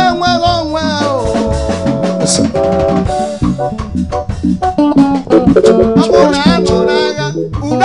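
Live praise band music with a drum kit beating out a snare rhythm over guitar and keyboard.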